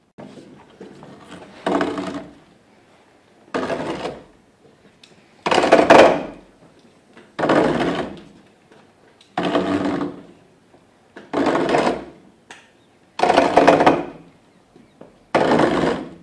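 Long hand-turned pump auger cutting into an oak trunk to widen the bore: a scraping creak of iron bit on oak with each turn, repeating about every two seconds, eight times in all.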